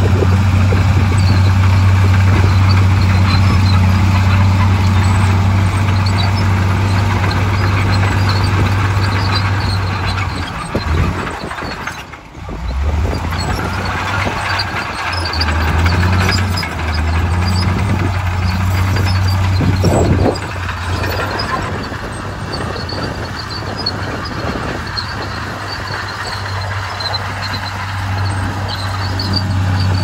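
Komatsu crawler bulldozer's diesel engine working hard as it pushes soil and rocks. The steady low engine note drops away briefly near the middle, then comes back unevenly as the dozer keeps working.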